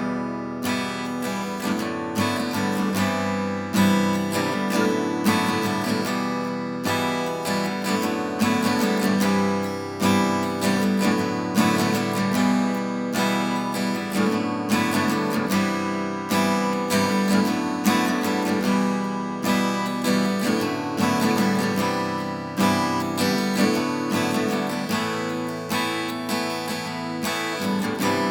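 Vintage Japanese steel-string acoustic guitar being strummed and picked, chords ringing out with a stroke every second or so. It starts suddenly at the very beginning.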